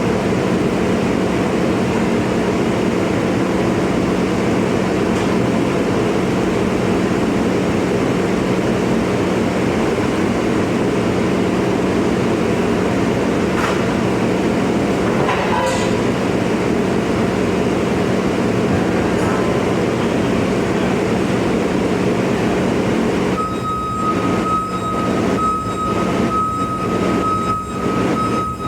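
Bobcat skid-steer loader's engine running steadily at a constant speed while it lifts an engine on its fork. About 23 seconds in, a steady high whine joins it and the sound dips several times.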